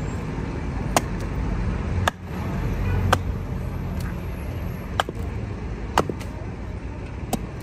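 A hatchet chopping into a wooden block on a stump, sharp knocks about once a second, over a steady rumble of street traffic.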